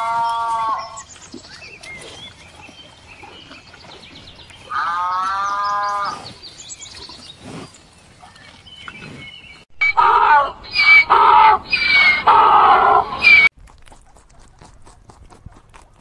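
Cattle mooing: a call trailing off about a second in, another long call about five seconds in, then a louder, broken run of several calls between about ten and thirteen seconds.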